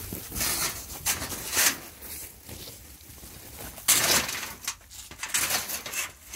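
A woven sleeping mat rustling and scraping as it is pulled and lifted across a corrugated roofing sheet, in several short noisy bursts, the loudest about four seconds in.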